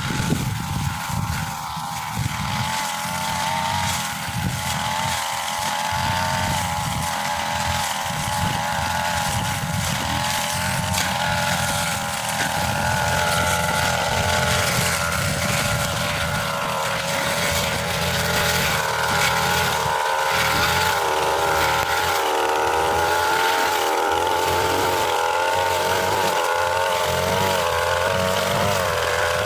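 Tiger TG328 brush cutter's small engine running steadily at high speed, its pitch wavering slightly.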